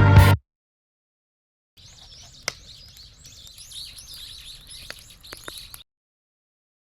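A music track cuts off right at the start. After a pause, small birds chirp and twitter faintly for about four seconds, with a few sharp clicks, and then the sound stops abruptly.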